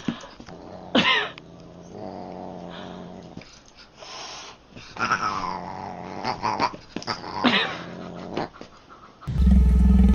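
Siamese cat and dog growling at each other as the cat swats at the dog, with sharp cat yowls about a second in and twice more in the second half. Loud music cuts in near the end.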